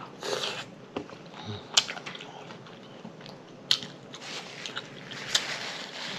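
Close-miked eating sounds: a person chewing, with wet lip smacks and a few sharp smacking clicks.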